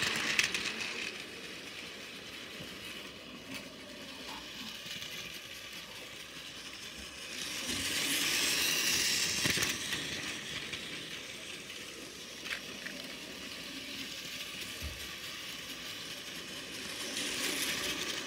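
Battery-powered toy 100 Series Shinkansen trains running on plastic track: a whirring motor and rattling wheels. The sound swells each time a train passes close, near the start, for a couple of seconds about eight seconds in, and again near the end.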